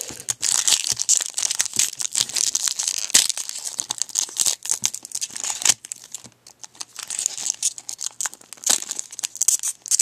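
Foil wrapper of a Topps baseball card pack crinkling and tearing as it is opened close to the microphone, with a short pause about six seconds in.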